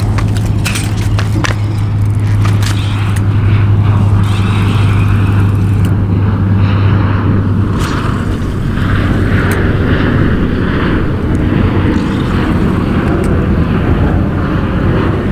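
Steady low wind rumble buffeting the microphone, with a few sharp clicks in the first two seconds.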